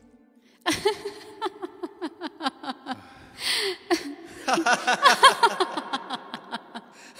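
People laughing: quick runs of short laughing bursts, broken by a breathy intake about three and a half seconds in.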